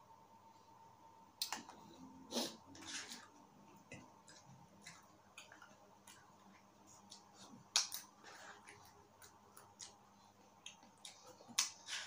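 Close-miked eating of ice cream: a plastic spoon clicking and scraping in a paper cup, with mouth sounds of eating between, as scattered soft clicks and a few louder smacks.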